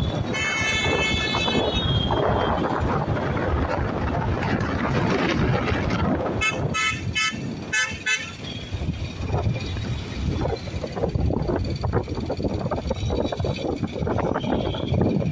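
Street traffic noise heard from a moving vehicle, with wind on the microphone. A vehicle horn sounds for about a second and a half at the start, and a quick series of short horn toots comes about six to eight seconds in.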